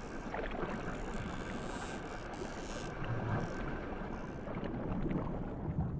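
Sea water rushing and splashing steadily, with a low rumble underneath and small scattered splashes.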